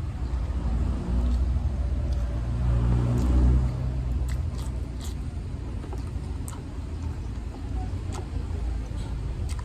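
A person chewing food, with short sharp mouth and utensil clicks scattered through, over a steady low rumble that swells and hums about three seconds in.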